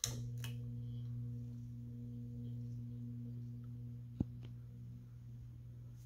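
A restored 1981 Hunter Original ceiling fan's cast-iron, oil-bath motor is switched on with a click and hums steadily as the blades spin up. One sharp click comes about four seconds in.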